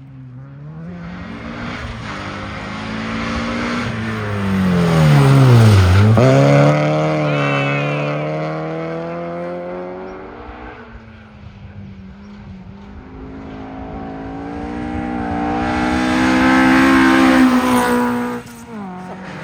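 Rally cars at full speed on a stage, passing one after another. The first car's engine gets louder as its pitch drops to a low point about six seconds in, then revs up as it pulls away. A second car's engine grows to its loudest near the end.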